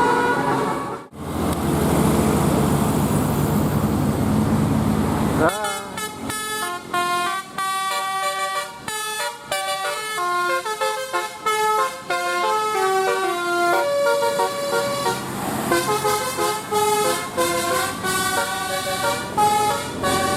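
Bus 'telolet' multi-tone musical horn playing a quick melody of separate stepping notes, after a few seconds of bus engine and road noise.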